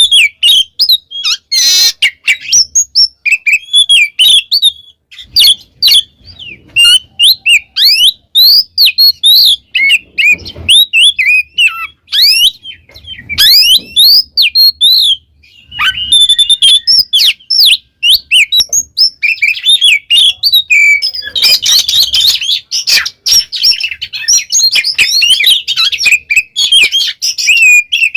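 Oriental magpie-robin (kacer) singing a loud, unbroken song of fast, varied whistles, chirps and trills.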